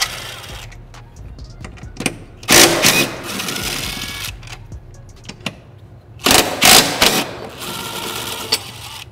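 DeWalt 20V cordless impact wrench hammering in bursts as it runs out the 14 mm bolts and nuts on the transmission mount bracket: a long burst about two and a half seconds in, then shorter bursts near the end.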